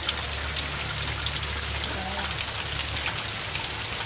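Pouring rain falling on wet ground: a steady, even hiss dotted with the small ticks of individual drops.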